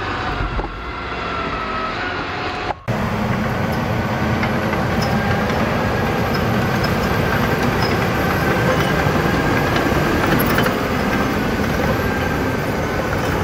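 KMC 2600 tracked skidder running: its engine and steel tracks make a steady machine noise. A sudden cut about three seconds in is followed by louder travel noise with a thin steady high whine over it as the machine drives on its tracks.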